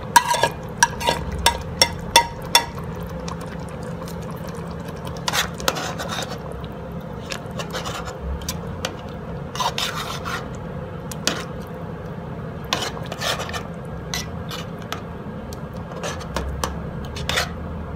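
Spoon stirring split peas into a pot of thick chicken stew, scraping and knocking against the pot. A quick run of sharp clicks in the first few seconds, then scattered scrapes and knocks.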